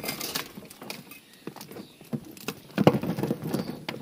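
Irregular small knocks, taps and rustles of handling gear in a boat, louder in a short cluster about three seconds in.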